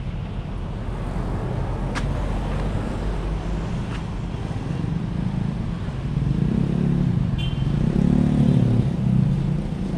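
Motor vehicle engine idling steadily. About six seconds in it swells louder and fuller, then eases off again near the nine-second mark, and a sharp click comes about two seconds in.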